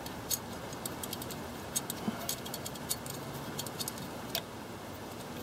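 Scattered small metallic clicks and light rattles of a carburetor's throttle linkage and cable bracket being handled by hand, several close together about halfway through.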